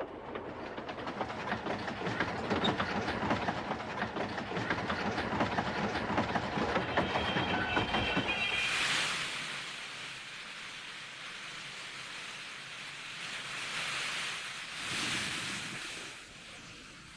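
Steam train sound effect: wagons rattle and clatter over rail joints for about eight seconds, then the sound falls back to a quieter run broken by several loud hisses of steam.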